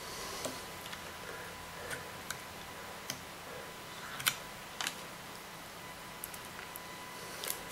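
A few scattered, sharp metallic clicks of circlip pliers working a circlip off the end of a vacuum cleaner motor's armature shaft, the loudest about four seconds in.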